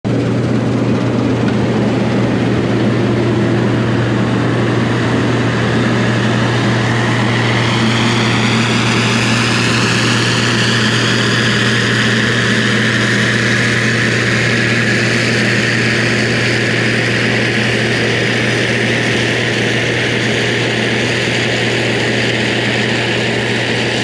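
Case IH 2366 rotary combine running in the field as it passes close by: its engine and threshing machinery make a loud, steady drone with a high whine, and the whine rises in pitch over the first several seconds.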